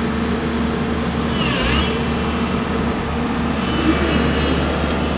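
Heavy-equipment diesel engine running steadily under way, with a brief high-pitched chirp about one and a half seconds in.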